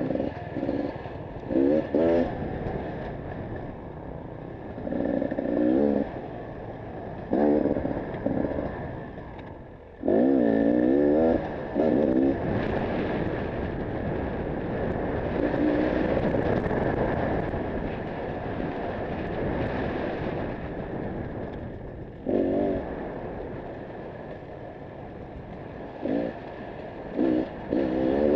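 Dirt bike engine heard from the rider's helmet, revving up in short bursts every few seconds as the throttle is opened, each rising in pitch, the longest about ten seconds in, and dropping back to a lower running note with wind noise in between.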